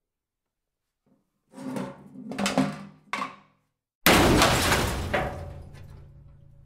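A few knocks, then one heavy crash that rings on and dies away over about two seconds.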